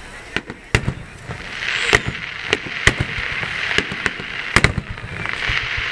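A fireworks display, with aerial shells bursting in a rapid, irregular string of bangs about a dozen times. Between the bangs a hiss swells up about a second and a half in and again near the end.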